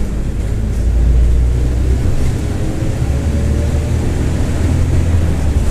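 Diesel engine of a Mercedes-Benz OF-1721 BlueTec 5 city bus running steadily under way, with a faint whine that rises slightly in pitch from about two seconds in; the video puts this noise down to a growling differential.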